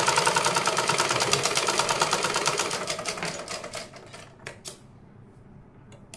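USHA sewing machine stitching with a fast, even mechanical clatter that slows, fades and stops about four seconds in. A few sharp snips of scissors follow, cutting the thread.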